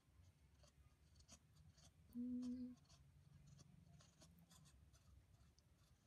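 Faint scratching and rustling of fingers rubbing a puppy's fur under its chin, with one brief low hummed tone a little over two seconds in.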